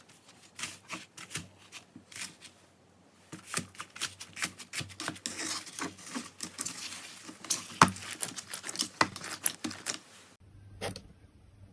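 Slime being squeezed and pressed by hand, giving quick, irregular clicking and crackling pops, densest around the middle.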